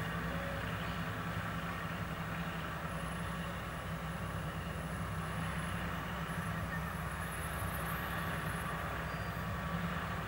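A diesel wheeled tractor's engine idling steadily, with road traffic passing close by.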